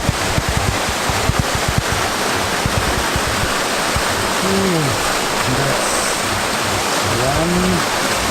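Waterfall making a steady, loud rush of falling water. Brief voices come through it about halfway and near the end.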